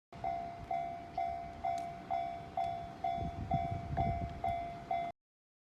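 Japanese railway level-crossing warning bell ringing, a single pitched 'kan' struck about twice a second, each strike fading before the next, with a low rumble beneath. It cuts off abruptly about five seconds in.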